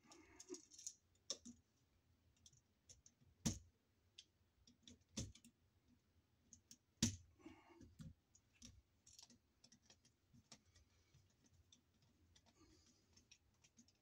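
Light clicks and taps of a screwdriver and wire against a wall outlet's terminal screws as the wires are fastened, with three sharper knocks spread through.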